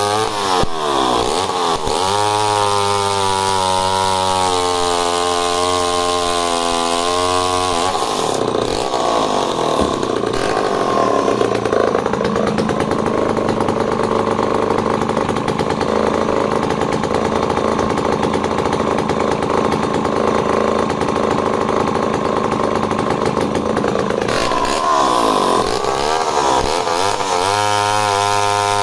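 Homelite C-51 chainsaw cutting through an ash log, its engine holding a steady, fairly low pitch under load without bogging, which the owner puts at around 5,500 rpm in the cut. After about eight seconds the saw drops back to a rougher idle while set down. It revs back up into the cut a few seconds before the end.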